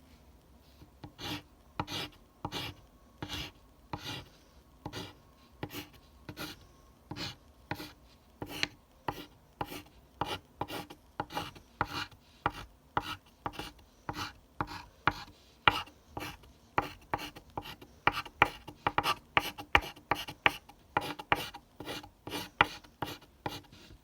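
Graphite pencil scratching across paper in short, separate strokes. They come about one or two a second at first and faster and louder in the second half.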